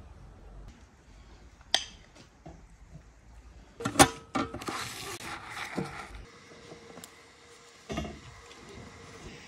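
Dishes and cutlery clinking and knocking on a table, a few separate clicks, the loudest a cluster of knocks with a short ring about four seconds in.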